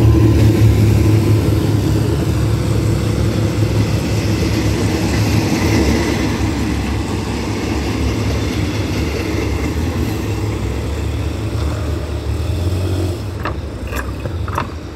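Diesel locomotive of a passenger train passing close by with its engine running, then the coaches rolling past on the rails; the sound slowly fades as the train moves away, the engine hum dropping away near the end. A few sharp clicks come in the last two seconds.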